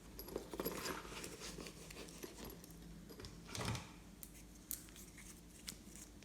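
Glossy slime being handled and mixed by hand: a run of small sticky clicks and crackles, with one longer, louder squish a little past the middle.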